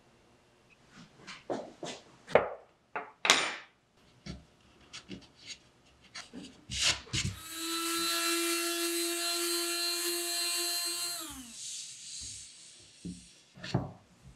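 Electric sander running on a wooden telephone backboard for about four seconds with a steady whine, then switched off and winding down. Before it, a series of sharp knocks and clicks from the board being handled, and two more knocks near the end.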